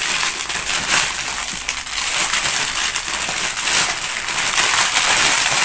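Clear plastic bags around new towels crinkling and rustling as they are handled, a continuous dense crackle.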